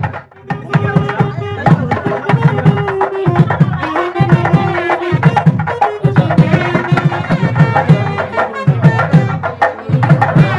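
Music with a fast, steady drum rhythm and a melody of long held notes over it.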